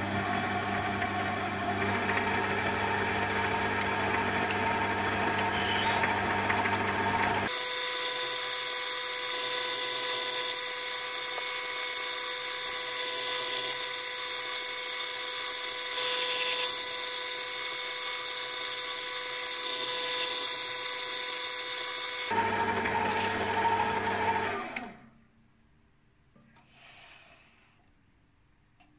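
Sieg C3 mini lathe running with a steady motor and spindle whine while a twist drill in the tailstock chuck bores into a brass hex bar. From about 7 s to 22 s the footage is sped up five times, so the whine is higher-pitched. The lathe stops about 25 s in.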